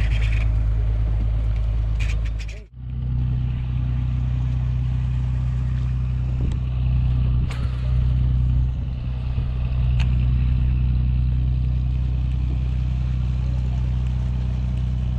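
Motorboat engine running steadily with a low hum, breaking off for an instant about three seconds in.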